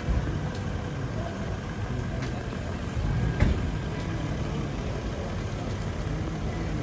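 Large SUVs' engines running at low speed, a steady low rumble, with a sharp knock about three and a half seconds in.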